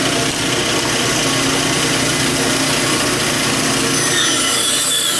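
Small bandsaw running steadily, a low motor hum with the whir of the blade; about four seconds in a thin high-pitched whine sets in.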